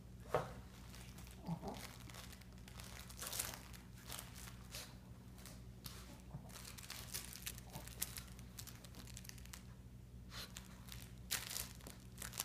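A small dog rummaging through crumpled paper towels and a crinkle toy: irregular spurts of papery crinkling and rustling.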